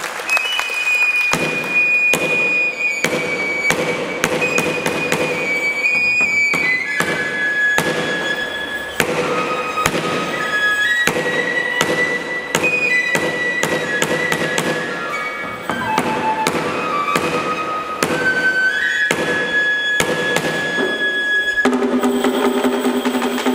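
Live Japanese ensemble music: a high melody of held notes moving in steps, over frequent sharp percussive strikes. Near the end the high melody stops and lower sustained notes take over.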